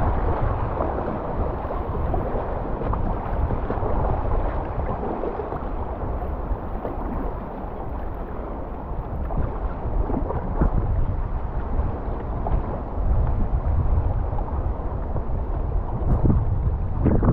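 Fast river water rushing around a whitewater kayak, with wind buffeting the microphone and the occasional splash of a paddle stroke.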